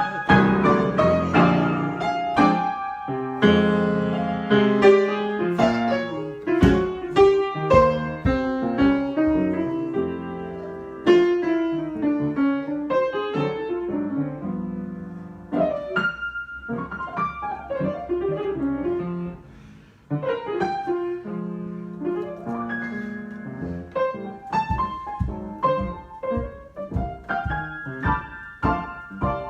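Piano being improvised, with chords and runs of notes struck in quick succession. Around two-thirds of the way through the playing thins almost to nothing for a moment, then picks up again.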